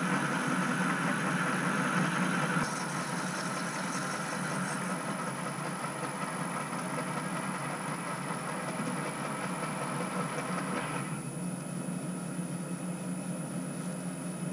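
Metal lathe running with a boring bar cutting the bore of an aluminium cylinder block, a steady mechanical hum with the hiss of the cut on top. About eleven seconds in, the cutting noise stops and a lower hum is left.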